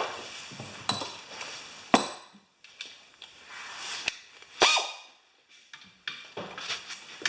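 Hand tools clinking: a handful of sharp metal clicks and clanks, irregularly spaced, as a half-inch socket wrench is readied on the cylinder head bolts of a small Briggs & Stratton engine.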